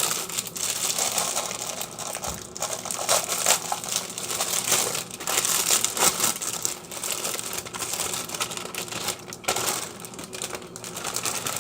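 Plastic wrapper of a frozen pizza crinkling and rustling as it is opened by hand.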